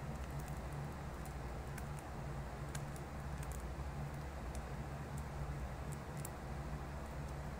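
Light, scattered clicks and taps of fingers handling a deck of laminated cards, over a steady low hum.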